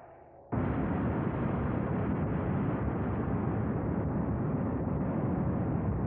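A loud, steady rumbling roar of noise that cuts in suddenly about half a second in and holds without a break.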